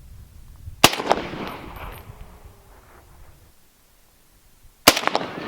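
Two rifle shots about four seconds apart, each a sharp crack followed by a fading echo, fired while sighting in the rifle's scope.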